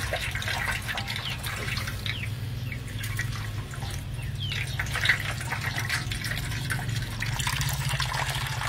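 Green juice squeezed from a cloth-wrapped cow stomach trickles and drips into a metal basin, splashing and bubbling continuously. A steady low hum runs underneath.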